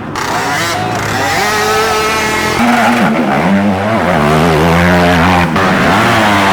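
Youth ATV engines revving, the pitch rising and falling as the quads are throttled, with more than one engine running at once and a steadier low engine note coming in about two and a half seconds in.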